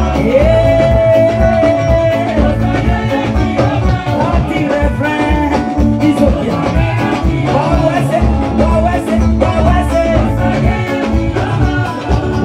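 Live band music with a steady beat and a lead singer through a PA system, with a long held note near the start.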